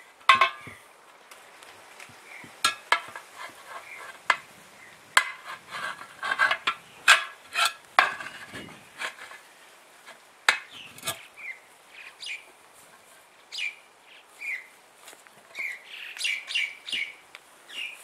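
Metal tyre lever knocking and scraping against an alloy wheel rim as it is forced in under a 4WD tyre's bead: a string of sharp metallic clicks and knocks, densest in the first half.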